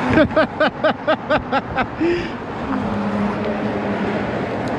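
A person laughing in a quick run of about eight short 'ha' pulses, over steady traffic noise on the bridge. A steady low hum sets in about halfway through.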